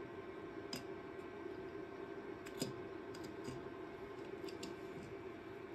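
Small scattered clicks and taps of plastic and metal as hands work the opened wireless receiver's circuit board and antenna free from its frame, the sharpest click about two and a half seconds in, over a steady low hum.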